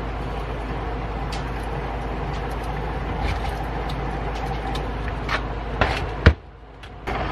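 Hand-cranked cast-iron grain grinder turning over as its crank is worked: a steady mechanical rumble of meshing gears, with scattered clicks and one sharp knock about six seconds in.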